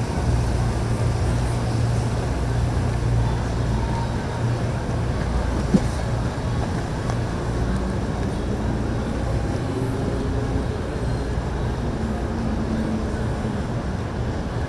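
Boat engines running with a steady low drone, and a single sharp click about six seconds in.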